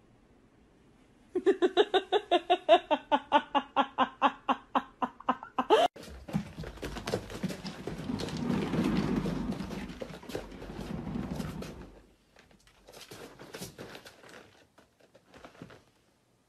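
A fast run of pitched pulses, about five a second, for some four seconds. Then a rumbling, clattering noise from a cat running in a cat exercise wheel, which stops suddenly about twelve seconds in and is followed by a few scattered clicks.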